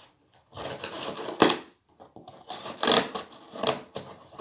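Scissor blade slitting packing tape along the seam of a cardboard box, in several scraping strokes with short pauses between.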